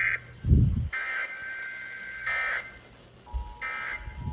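Emergency Alert System broadcast tones: short buzzing bursts of the SAME digital data signal, then from about three seconds in the steady two-tone EAS attention signal. There is a loud low thump about half a second in and another near the end.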